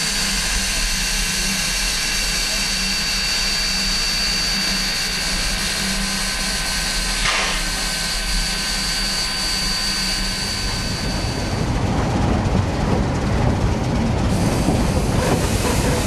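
Standing steam locomotive with steam hissing steadily from its air pump and other pumps, a thin high tone held over the hiss. About eleven seconds in this gives way to the louder rumble and clatter of the train's open passenger cars rolling along the track.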